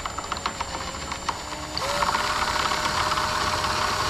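Ryobi cordless drill running, boring out a plastic nose-gear mount. Its motor pitch steps up and the sound grows louder about two seconds in, with fast ticking from the bit in the plastic.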